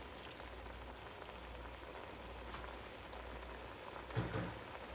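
Shrimp and vegetables simmering in liquid in a nonstick pan: a steady bubbling patter. A brief low sound comes about four seconds in.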